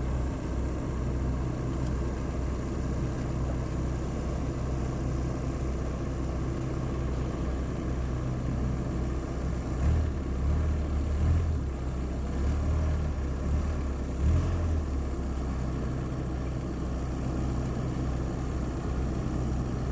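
Portable bandsaw mill's engine idling steadily after starting, with a few louder low swells between about ten and fifteen seconds in.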